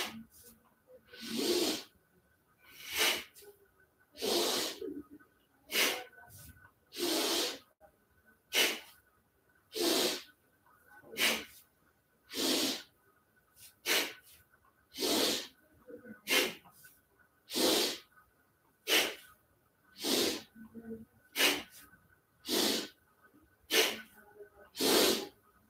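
A person breathing hard and audibly in a quick, steady rhythm, about one sharp breath every 1.3 seconds, with each in-breath and out-breath timed to a fast seated spinal twist.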